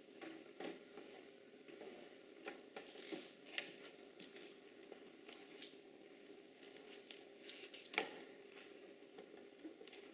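Faint, scattered clicks and taps of hard plastic toy parts being handled, as a toddler works the small door of a plastic play castle, with one sharper click about eight seconds in.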